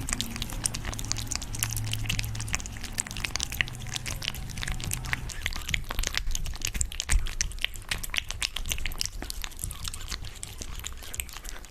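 Eating sounds: chewing and crunching, with a dense run of quick crackling clicks.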